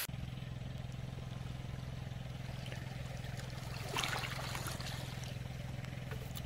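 Muffled underwater sound picked up through a diver's camera: a faint, steady low hum with a wash of water noise, and a short rush of noise about four seconds in.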